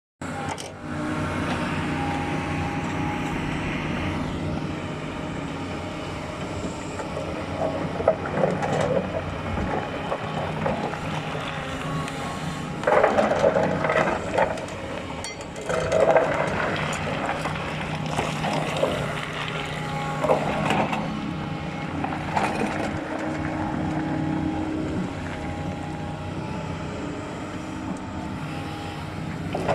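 Doosan excavator working: its diesel engine runs steadily, with several louder bursts of a second or two in the second half as it works.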